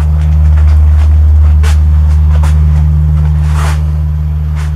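Low, steady engine hum of a motor vehicle, loud, swelling about a second in and slowly fading, with a few short sharp sounds over it.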